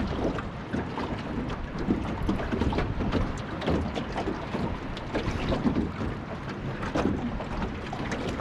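Wind buffeting the microphone, with water lapping and slapping against the hull of a small aluminium dinghy in irregular short knocks.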